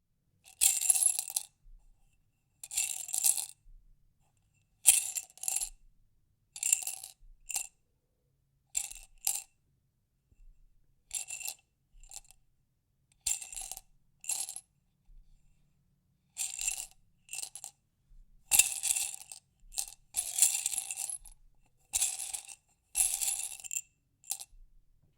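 Small hard objects rattling and clinking inside a glass jar, the glass ringing with each jostle. The rattling comes in about twenty short bursts with brief pauses between them, some loud and some faint.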